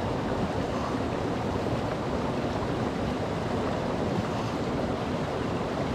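Steady rushing of hot spring water, an even noise that holds level throughout.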